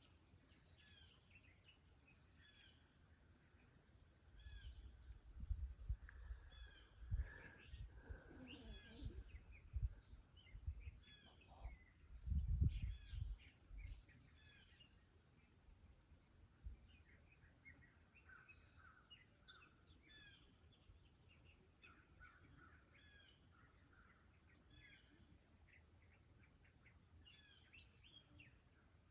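Faint outdoor birdsong: many short chirps and calls repeating throughout, over a steady high drone. For several seconds in the first half, low rumbling bumps on the microphone are the loudest sound.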